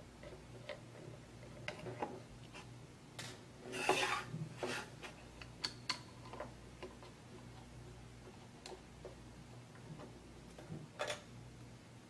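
Faint scattered clicks, taps and scrapes of a small screwdriver backing screws out of a notebook hard drive's mounting bracket, with a louder scraping rustle about four seconds in.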